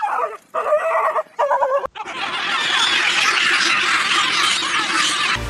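Three short, shrill animal cries in quick succession. About two seconds in, the sound cuts to a steady, dense rushing noise.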